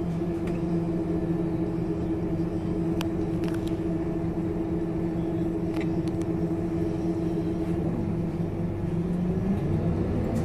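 Scania K230UB bus's five-cylinder diesel engine idling steadily, heard from inside the passenger saloon, with a few light rattles. Near the end the engine note begins to rise as it revs up.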